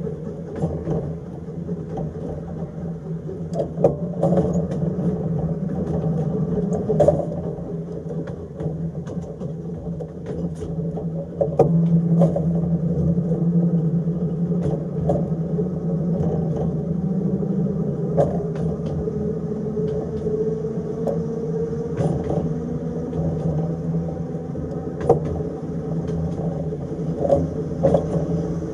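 Narrow-gauge electric tram running along the track: a steady rumble and motor hum, with short clicks and knocks from the wheels on the rails coming at irregular intervals.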